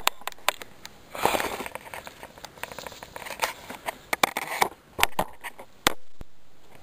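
Sharp knocks and clicks from a shotgun and the camera on it being handled and jostled, with rustling of footsteps through dry grass.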